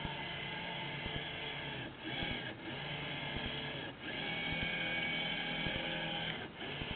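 Electric drive motor and gearing of a 78-inch radio-controlled Gato submarine model, whining steadily through the camera mounted on its hull, with brief dips about two, four and six and a half seconds in.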